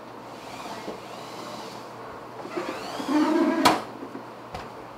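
Sliding glass door opened, with one sharp bang against its frame about three and a half seconds in, just after a brief voice sound.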